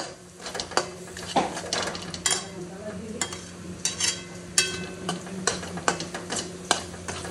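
Steel spoon scraping and clinking against an aluminium kadhai as a thick spice paste is stirred, in quick irregular strokes, a few of them ringing briefly, over a faint sizzle of the paste frying in oil.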